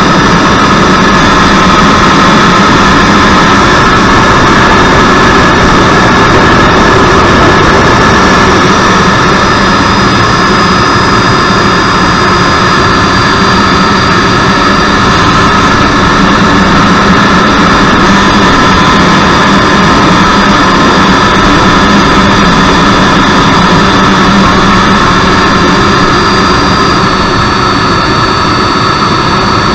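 Freewing 90mm electric ducted fan, driven by its stock outrunner motor on a 6S pack, running at flight power: a loud steady whine over rushing air, heard from inside the model's cockpit. Its pitch eases down slightly a few times with small throttle changes.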